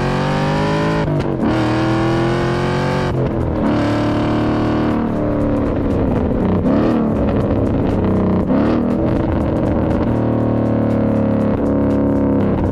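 2011 Mustang's modified exhaust (cat delete, X-pipe, axle-back) revving up and dropping through several gear changes, with rev-matching throttle blips from a downshift blip module on the downshifts. Rock music with distorted guitar plays over it.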